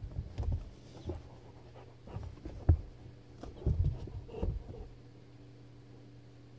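Weimaraner squirming under a bed: irregular soft thuds and scuffs as it shifts its body and legs against the floor and bed frame, with one sharper knock near the middle.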